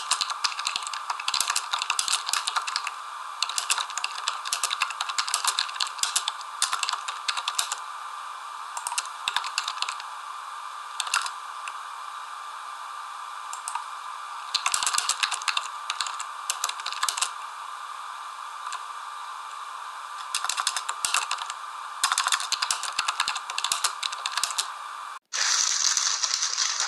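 Bursts of rapid, typing-like clicking with pauses between them, over a steady hiss. Just before the end the audio cuts out for an instant and gives way to a brighter, hissier rattling.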